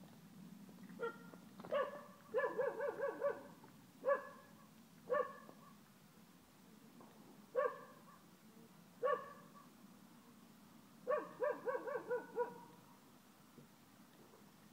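A dog barking in short, high-pitched yaps: single barks every second or two, with two quick runs of five or six yaps, one about two seconds in and one near the end.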